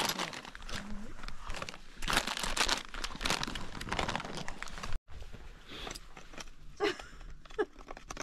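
Plastic snack packet crinkling and rustling as it is handled and opened, with irregular crackles and crunches.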